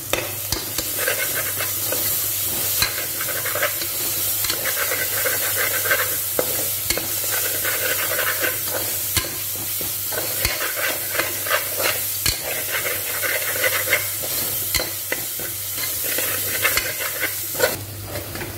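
Onions, ginger-garlic paste and green chillies sizzling in oil in an aluminium pressure cooker, with a metal ladle scraping against the pan over and over as the masala is stirred and sautéed.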